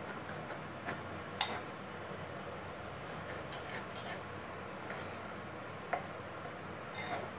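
Metal spoon stirring wheat flour and thick curd in a bowl: quiet rubbing and scraping, with a few light clicks of the spoon against the bowl, the sharpest about a second and a half in and about six seconds in.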